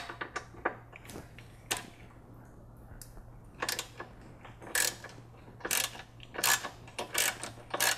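Ratchet clicking in short strokes as a 10 mm triple-square bolt is backed out of a rear sway bar clamp. There are a few scattered clicks, then from about three and a half seconds in a sharp click every half second or so, over a faint steady low hum.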